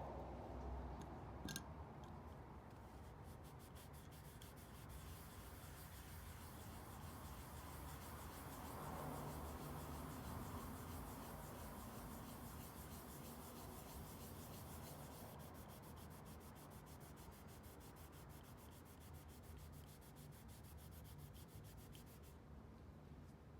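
Hand sanding on the metal case of a Zippo lighter, a long run of quick, even rubbing strokes that starts a couple of seconds in and stops near the end. A single click comes just before the strokes begin.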